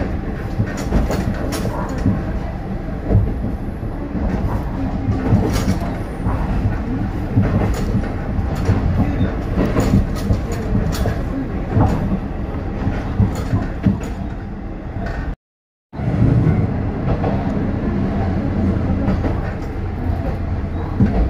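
Isumi Railway type 350 diesel railcar running, heard from inside: a steady engine hum with the clack of wheels over rail joints. The sound cuts out completely for about half a second roughly three-quarters of the way through.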